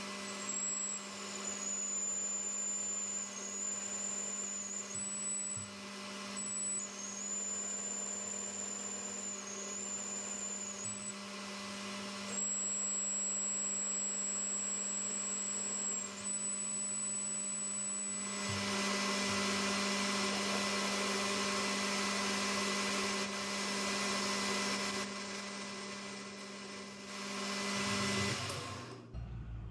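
Metal lathe running while a boring bar cuts out the bore of a piston blank: a steady motor hum with a high whine that comes and goes. About two-thirds of the way in it grows louder and noisier, then the spindle stops shortly before the end.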